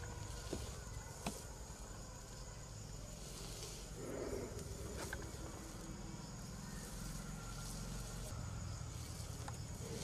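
Faint outdoor background noise: a low steady rumble and a thin, high, steady whine like an insect, with a few light clicks.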